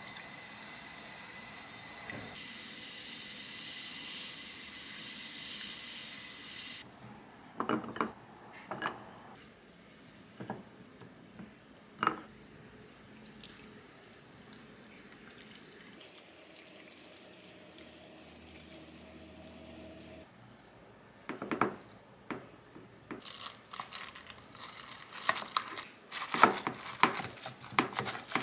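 A pot of turmeric-yellowed pickling brine hissing and bubbling at a rolling boil on a gas burner, then scattered knocks as the hot brine is poured over radish strips in glass food containers. Near the end, dense crinkling of plastic wrap and clicks of the snap-lock lids being pressed shut.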